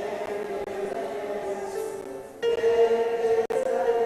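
A congregation singing a hymn in long held notes, with a louder new note entering a little past halfway.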